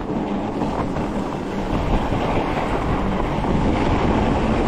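Steady rushing wind noise on the microphone from riding a fat bike along a snow trail.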